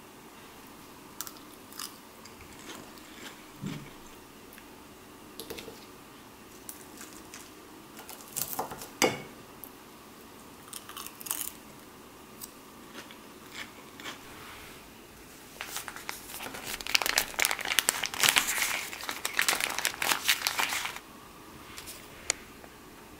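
Crisp lettuce salad being eaten: close-up crunching bites of the leaves, scattered at first, then a dense, louder run of crunching lasting about five seconds near the end.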